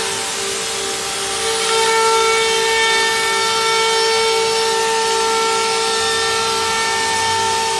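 Three-spindle CNC router milling rows of round holes into an aluminum composite panel: the high-speed spindles give a steady whine over the hiss of the cutting.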